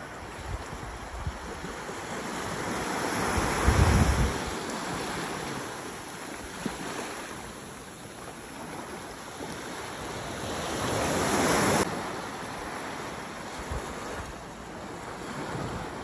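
Small waves breaking and washing up onto a sandy beach, the surf swelling twice, about four seconds in and again around eleven seconds, where it cuts off suddenly. Wind rumbles on the microphone at the first swell.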